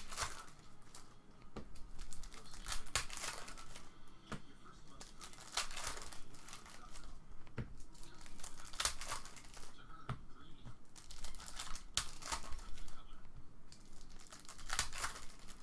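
Wrappers of trading card packs being torn open and crinkled by hand, in irregular crackling bursts.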